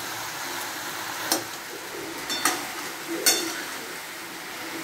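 Metal spatula stirring potatoes and pointed gourd frying in a metal kadai: a steady sizzle with a few sharp clinks as the spatula strikes the pan.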